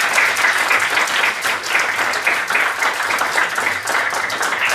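An audience applauding, many hands clapping at once.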